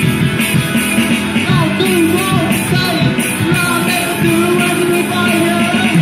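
Amateur rock band playing live: electric guitars and bass through small combo amps, with drums and a sung vocal line over them.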